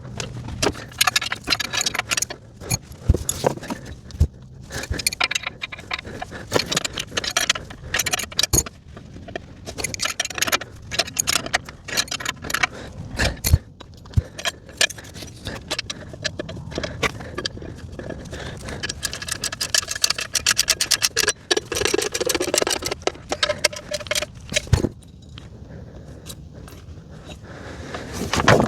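Steel hand wrenches clicking, clinking and scraping on metal in quick irregular runs, with an occasional knock, as the mini excavator's track tensioner nut and rod are worked to slacken an over-tightened track.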